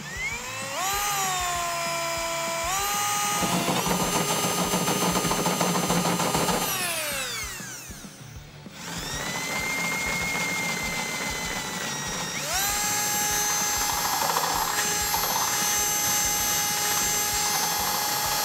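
Cordless drill boring through the steel shock bucket on a truck frame, first with a step bit for the pilot hole, then with a 1/2-inch twist bit. The motor whine spins up, winds down about seven seconds in, starts again and steps up to a higher speed about twelve seconds in.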